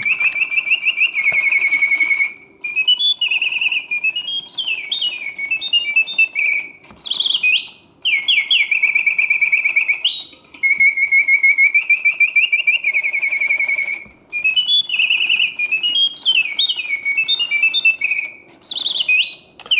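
Reuge mechanical singing bird cage's bellows-fed whistle sounding birdsong in continuous play: long trills and quick rising and falling warbled phrases, broken by several short gaps between phrases.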